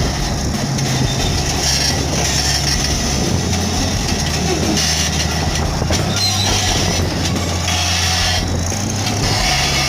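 Caterpillar bulldozer's diesel engine running steadily, its low tone shifting slightly about halfway through and again near the end.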